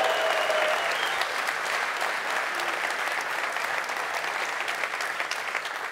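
Conference audience applauding, the clapping fading slowly; a held cheer rises over it in the first second.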